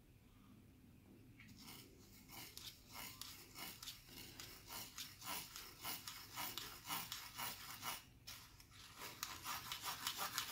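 A metal spoon scraping and rubbing inside a fine mesh strainer, pressing melted jaggery syrup through the mesh. It is a faint quick rhythm of scraping strokes, two or three a second, that pauses briefly near eight seconds in and then goes on faster.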